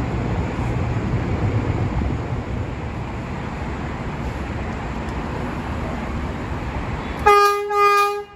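New York City subway train rolling into an elevated station, a steady rumble of wheels on the track, then near the end two short blasts of the train's horn, the second cut off sharply.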